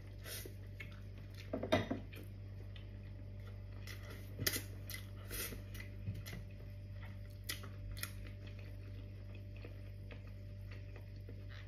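Close-up eating sounds: chewing of beef-foot stew and rice eaten by hand, with a few short clicks and clatters from the plate and sauce dish, over a steady low hum.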